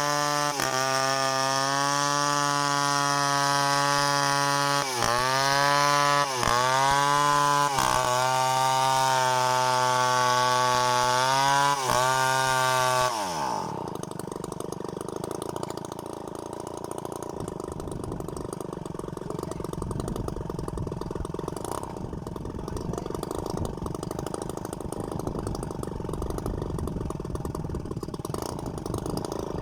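Two-stroke chainsaw running at high revs, its pitch dipping briefly a few times, then winding down sharply about two-thirds of the way into the first half. After that comes a quieter, rougher running sound, and the saw revs up again at the very end.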